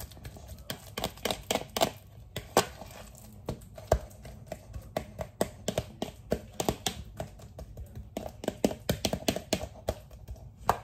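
A utensil clicking and tapping irregularly against a mixing bowl, a few times a second, as mashed bananas are worked for a banana cake batter.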